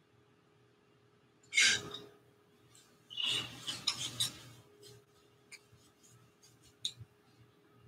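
Paintbrush scrubbing and rubbing paint, in two scratchy bursts about one and a half and three seconds in, followed by a few light taps.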